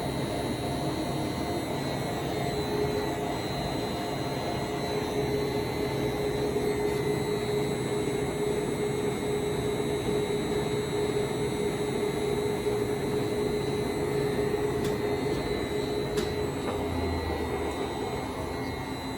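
Large Poreba TPK110 engine lathe running with its carriage moving under power feed: a steady mechanical hum with a steady whine over it, easing off near the end.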